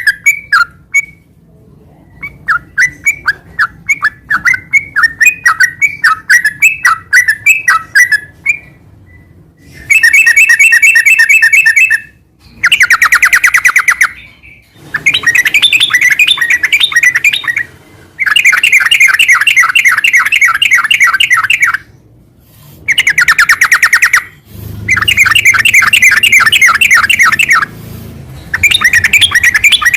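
Yellow-vented bulbul (trucukan) singing: short, bubbly whistled phrases for the first several seconds, then long, loud runs of very rapid trilled notes, each two to four seconds long with brief breaks between. This is the continuous 'ngeropel' chatter of a bird in full song.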